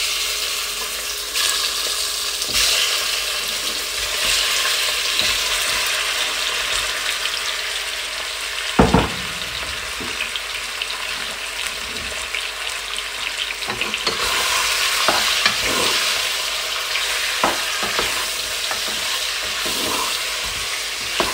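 Marinated chicken wing pieces sizzling as they go into hot olive oil in a pot, a steady frying hiss that starts suddenly. A single knock comes about nine seconds in. A wooden spoon stirs and scrapes the meat around the pot near the end.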